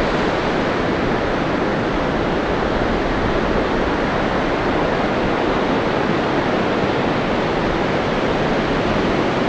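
Ocean surf breaking offshore and washing up a sandy beach: a steady rushing noise with no letup.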